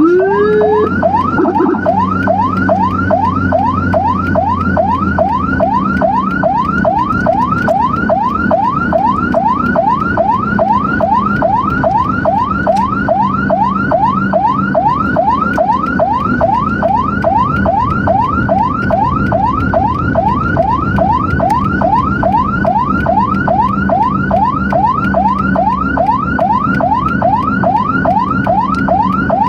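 Emergency vehicle siren in fast yelp mode: a sweep repeating about three times a second without a break, over steady engine and road noise. A short rising whoop sounds at the very start.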